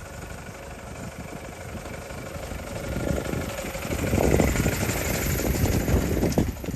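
A motor vehicle's engine running as it approaches and passes close by, getting steadily louder through the first four seconds and staying loud near the end.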